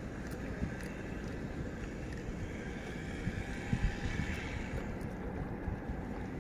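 Wind buffeting the microphone, a steady low rumble, with a few soft thumps about four seconds in.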